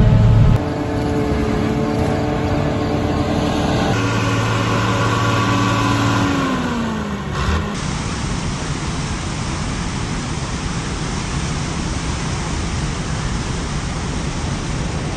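Harvesting machine's engine running steadily, its pitch sliding down about six seconds in as it slows. After that, a steady rushing noise of fast, swollen river water.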